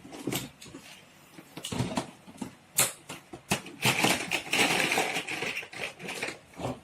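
Small plastic toys and toy cars being handled: a string of sharp clicks and knocks, growing into a busier clatter about four seconds in.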